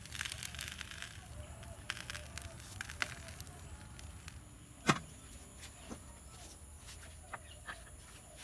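Rusted steel hydraulic jack being handled in gloved hands: scattered small clicks and scrapes of its stiff rusty parts, with one louder knock about five seconds in.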